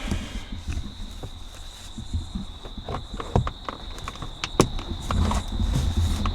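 Scattered plastic clicks and knocks as a 2007 Toyota Camry sun visor and its mounting parts are handled and pushed into place, with the sharpest snaps a little past the middle.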